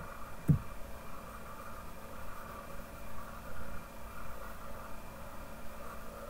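Steady background hum and hiss of the narration microphone's room tone, with one brief soft low thump about half a second in.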